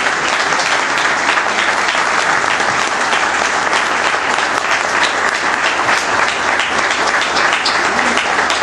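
Audience applauding: many hands clapping in a dense, steady patter with no lulls.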